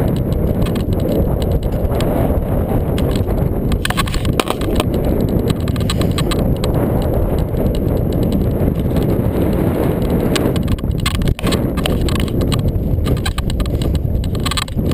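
Strong wind buffeting the microphone, a dense low rumble, with irregular clicks and knocks scattered through it.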